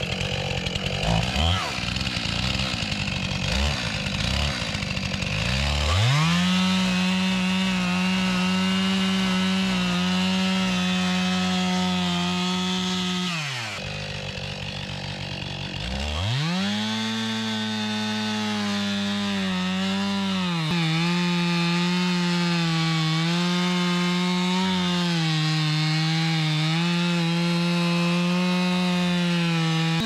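Gas-powered Stihl chainsaw cutting into the base of a large poplar trunk. It revs unevenly for the first few seconds, then runs at steady full throttle in the cut. It drops back to idle for about two seconds midway, then revs up again into a long steady cut with brief dips in pitch under load.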